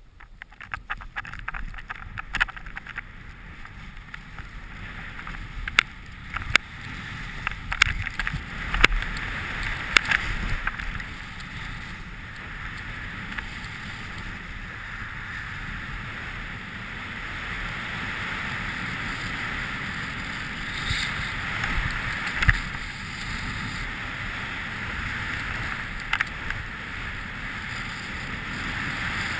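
Skis hissing through powder snow on a descent, the hiss building over the first few seconds and then holding steady, with scattered sharp clicks and knocks.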